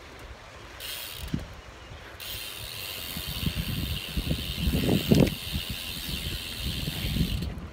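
Handling noise from a phone held in the hand: irregular knocks and rubbing as it is gripped and shifted, growing louder about halfway through.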